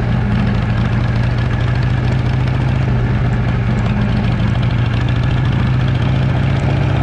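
Motorcycle engine running at a steady cruising speed while riding: a loud, even drone that does not rev up or down.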